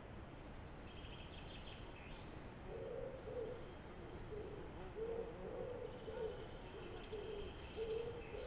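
A pigeon cooing faintly, a repeated low phrase of short notes starting about three seconds in, with a small songbird's high chirps twice.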